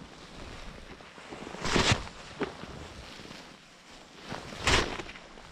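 Snow being scooped and heaped by hand: two short crunching swishes of snow, about three seconds apart.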